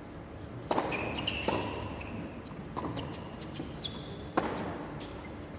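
Tennis rally on an indoor hard court: four sharp knocks of the ball off the rackets and the court, with short high squeaks of tennis shoes on the court between them.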